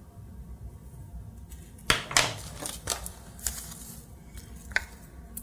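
Metal spoon scooping and scraping cornmeal into a measuring cup, a run of short scrapes and clicks about two seconds in and a sharp click near the end.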